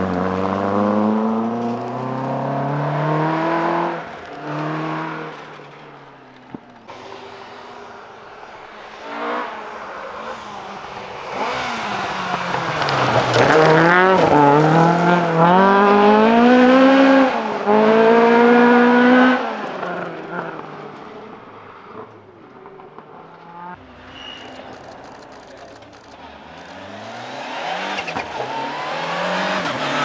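Rally car engines at full throttle on a gravel stage: a Peugeot 306 accelerating away through the gears in the first few seconds, then, after a quieter spell, a Ford Escort Mk2 passing and pulling away hard, its engine note climbing and dropping with several quick gear changes. Near the end the next car's engine is heard approaching.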